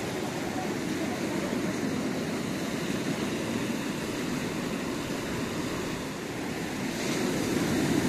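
Beach ambience: a steady wash of small waves on the shore with a faint murmur of distant voices, growing a little louder near the end.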